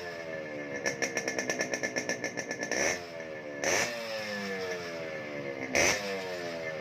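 Yamaha RX King 135's single-cylinder two-stroke engine being revved in repeated throttle blips, its pitch falling back after each one. From about one to three seconds in there is a run of rapid exhaust pulses, and there are two short sharp blips a couple of seconds apart later on.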